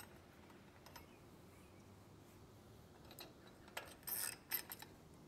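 A few faint metallic clicks and clinks as a nut is turned by hand on a long bolt of the rock guard's metal bracket. They cluster about three to four and a half seconds in, the loudest just after four seconds, with quiet around them.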